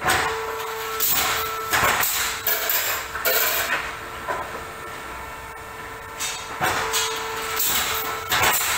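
Olimpia Chiodatrici T30 pallet nailing machine at work: irregular loud strikes and hissing bursts with clattering of wooden pallet boards, over a steady machine hum.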